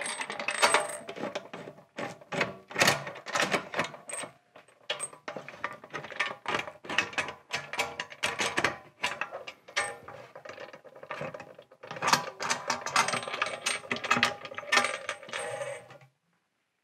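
The lid clamp bolts of a California Air Tools steel resin-casting pressure pot are unscrewed by hand one after another, giving a busy run of metallic clicks, rattles and scrapes. The sound stops abruptly near the end.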